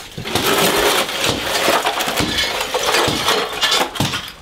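Broken floor tile pieces clattering and scraping as they are scooped off the floor with a plastic dustpan: a dense run of small clinks and knocks.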